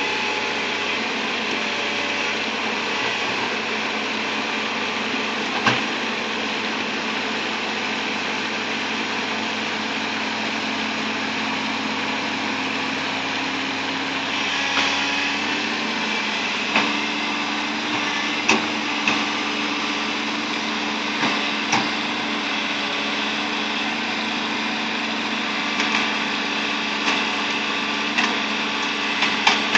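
Bulldozer's diesel engine running steadily, its note shifting about halfway through. From then on, sharp knocks and clanks come every second or two.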